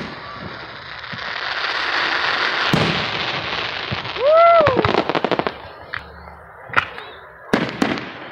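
Aerial firework shells bursting: a sharp bang, then a swelling stretch of hissing and crackling, then a quick run of bangs near the end.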